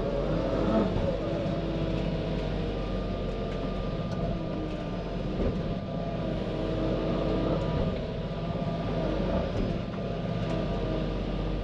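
Komatsu PC88 excavator's diesel engine running steadily, heard from inside the cab. A thin higher tone joins the hum about three seconds in and fades out around eight seconds.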